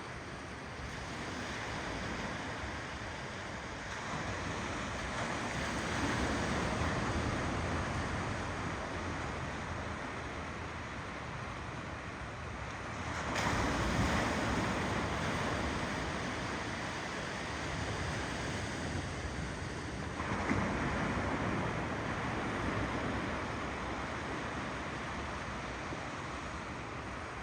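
Ocean waves rolling onto a shore: a continuous rush of surf that swells louder with each incoming wave, three times, most sharply about halfway through.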